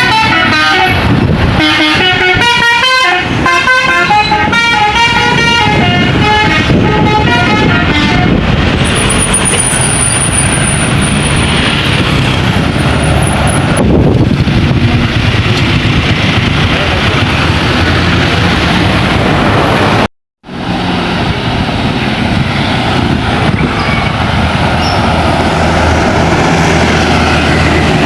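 Bus telolet (basuri) multi-tone musical horn playing a quick melody of stepped notes for about the first eight seconds, then the loud engine and road noise of passing traffic. The sound drops out for a moment about 20 seconds in.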